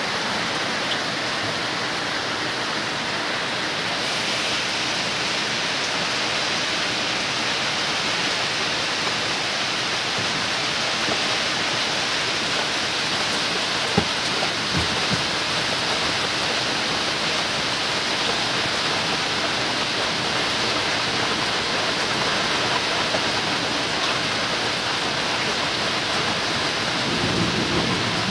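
Steady heavy rain, an even hiss throughout, with one sharp click about halfway through.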